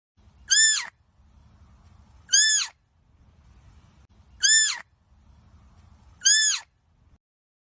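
Deer calling: four short, high-pitched calls about two seconds apart, each rising and then falling in pitch. A faint low rumble runs between the calls.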